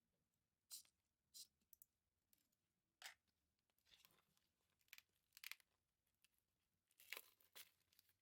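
Faint crinkling and rustling of packaging being handled: a string of short, sharp crackles at irregular intervals, bunched more closely near the end.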